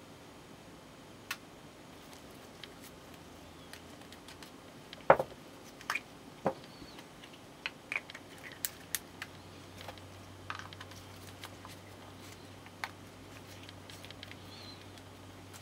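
Small plastic parts of a Nendoroid figure clicking and tapping as they are pulled apart and fitted together by hand. The clicks are scattered and sharp, the loudest about five seconds in, with a quick run of them around eight to nine seconds.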